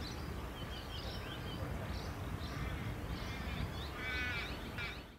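Outdoor ambience of birds chirping and calling over a steady rumble of wind on the microphone, with a louder, harsh crow-like call about four seconds in.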